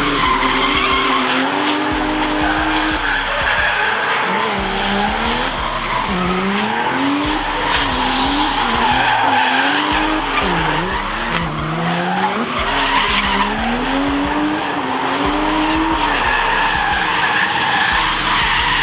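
Drift cars sliding in a tandem run: engines revving up and falling back over and over in quick sweeps, over a constant screech of tyres sliding sideways.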